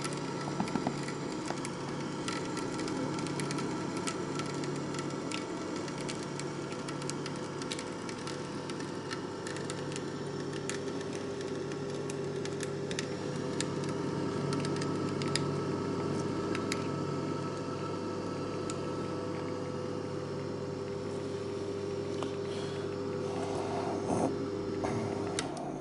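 Electric screw oil press running with a steady motor hum while it crushes hemp seeds, with scattered crackling from the seeds breaking in the screw. The motor is switched off about a second before the end and the hum stops.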